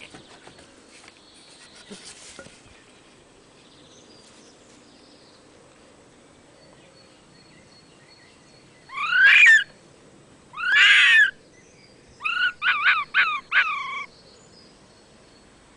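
Fox cub calling out with high-pitched cries: two longer calls about a second apart, then four short ones in quick succession. Faint clicking and handling clatter comes in the first couple of seconds.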